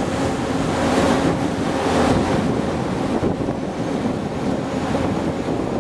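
Surf breaking and washing in the shallows, with wind buffeting the microphone in a steady, rough rush of noise.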